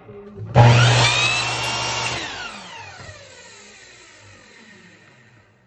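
Electric miter saw's motor starting with a sudden burst and running for about a second and a half. It is then switched off and the blade winds down, its whine falling in pitch and fading over the next few seconds.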